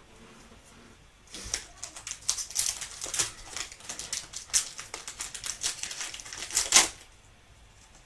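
Stack of 2024 Illusions football trading cards being flipped through one after another: a quick run of sharp clicks and slides for several seconds, the loudest snap just before the end, with a pause before it starts and after it stops.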